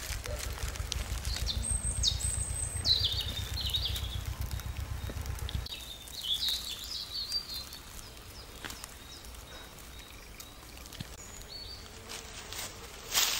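Small songbirds singing short chirping, twittering phrases. A low rumble runs underneath until it stops abruptly about halfway through, and a brief loud rustle comes near the end.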